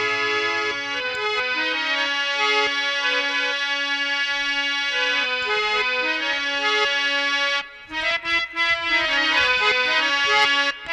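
Harmonium playing a melody in held, reedy notes; about eight seconds in it breaks off briefly and comes back with shorter, choppier notes.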